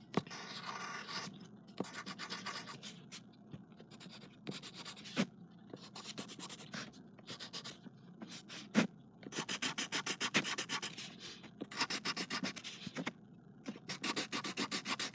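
Pencil rubbing on paper in bursts of quick back-and-forth strokes, as when shading in a drawing, with a few sharper single taps of the pencil.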